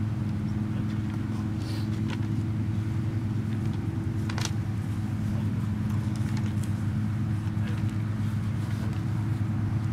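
Steady low engine hum, even and unchanging, with a few faint clicks.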